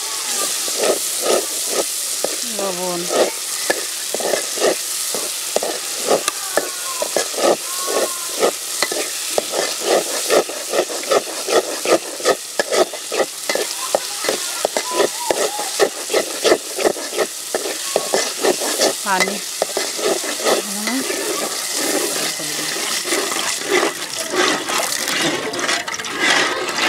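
Spice paste sizzling as it fries in oil in an aluminium pot, with a metal spatula scraping and stirring it against the pot in quick repeated strokes. Near the end water is poured into the pot.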